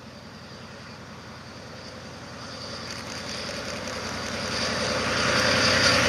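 DE15 diesel snowplow locomotive approaching and drawing close: its engine drone and a broad rushing noise grow steadily louder, reaching their loudest near the end as it comes alongside.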